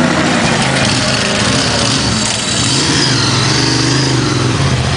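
Motorcycle engine running, most likely the 900cc Ducati Monster's air-cooled V-twin: a deep, steady note that shifts in pitch, with a fainter high whine rising and falling around the middle.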